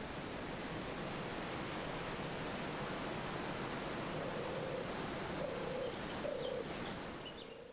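Wind rushing steadily through forest trees. In the second half a bird gives three low calls, and a few short high chirps follow near the end. The whole sound fades out at the close.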